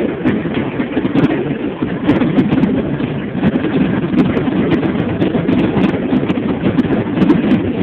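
Fireworks going off in a rapid, continuous barrage: a dense, unbroken rumble of booms with many sharp cracks and crackles on top.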